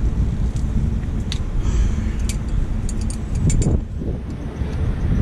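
Steady low rumble of wind buffeting the microphone. Scattered light metallic clicks come from an adjustable wrench working on a small brass-and-steel coolant bleed valve, several close together a little past the middle.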